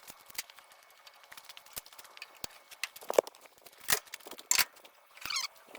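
Scattered light clicks and knocks of hand tools and fittings being handled during compressor disassembly, coming irregularly, with a few louder knocks in the second half and a short squeak near the end.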